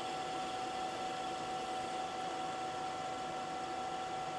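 Manual lathe running with its spindle turning while the tool takes a slow facing cut across the end of a 12L14 leaded steel bar. A steady high whine over an even hiss.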